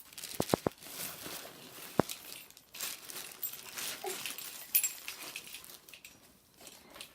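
Plastic packaging crinkling and rustling as it is handled and unwrapped. There is a quick run of three sharp clicks about half a second in and another sharp click about two seconds in.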